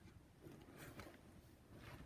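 A sleeping dog snoring faintly: two soft breaths about a second apart.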